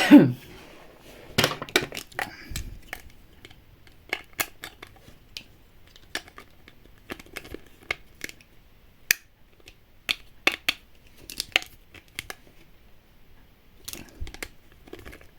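Small toy building pieces being handled and fitted together: scattered light clicks and taps at irregular intervals.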